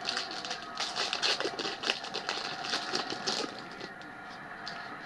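Foil trading-card pack being torn open and its wrapper crinkled: a quick run of crackles that thins out about three and a half seconds in. A steady background hum runs underneath.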